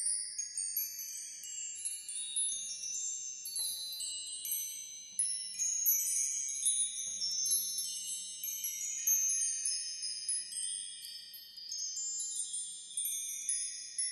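Intro sound effect of high, shimmering chime tones: many bell-like notes struck one after another, overlapping as they ring on, like wind chimes.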